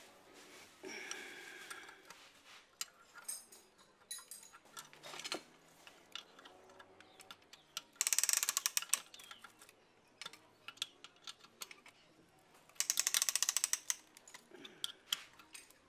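Spanner turning the exhaust manifold nuts on an Isuzu 4JB1 cylinder head, with scattered metal clinks and two bursts of rapid ratchet clicking, about eight and thirteen seconds in, which are the loudest sounds.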